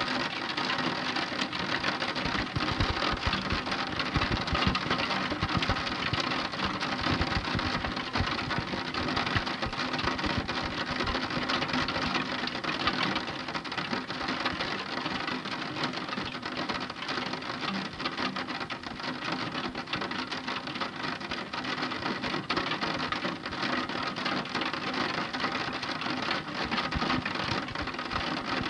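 Heavy rain falling, a dense, steady patter of many small drops.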